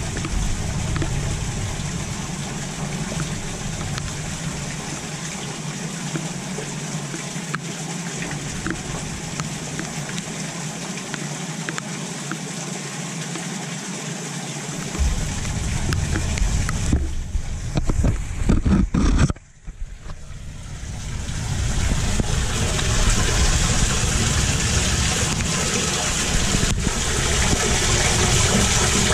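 Steady rush and trickle of rainwater running into a roadside culvert drain, under a low outdoor rumble. A little past the middle there are irregular low buffeting bumps and a brief dropout, after which the water hiss is brighter and louder.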